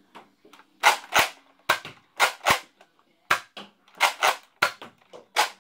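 Nerf N-Strike Modulus Mediator pump-action dart blaster being pumped and fired: a string of about a dozen sharp plastic clacks and pops, some in quick pairs.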